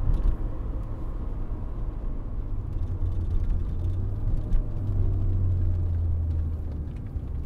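Mazda MX-5 Miata engine and road noise heard from inside the cabin while driving: a steady low drone that grows louder about five seconds in and eases off near the end.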